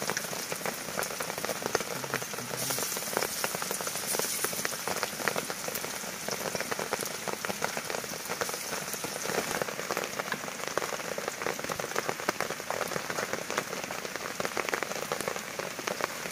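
Hot oil sizzling in a wok as batter fries, a steady hiss full of small crackles and pops.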